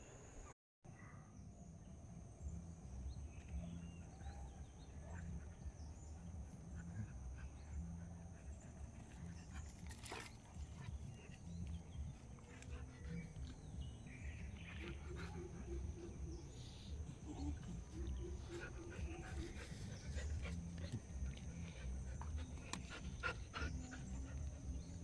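Dogs barking faintly over a low steady rumble, with a brief dropout about half a second in.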